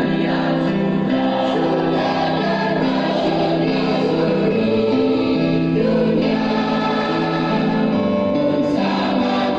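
Junior high school choir singing together in several parts, with held notes that change every half second to a second.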